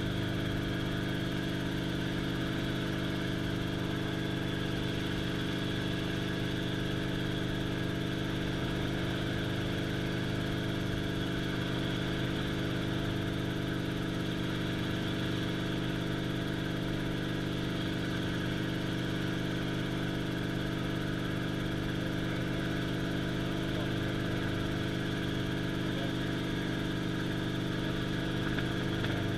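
Helicopter in flight, heard from inside the cockpit: the engine and main rotor make a constant drone of several steady humming tones over a low rumble.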